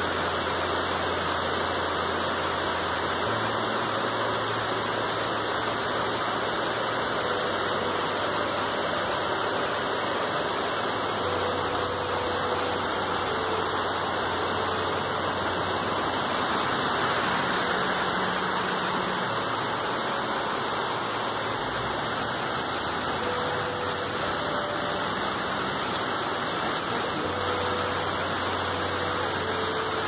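Steady rain pouring down on tree leaves, an even, dense hiss.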